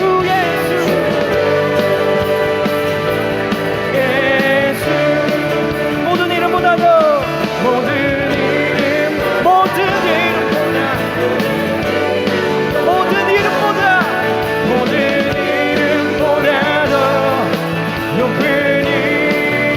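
Contemporary worship band music: steady sustained chords with a melody line that bends and glides above them.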